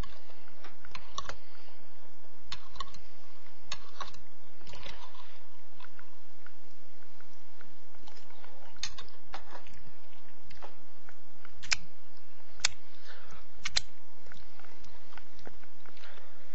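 A person chewing and eating canned sardines in tomato sauce close to the microphone: soft wet mouth clicks and smacks, with a few sharper clicks near the end.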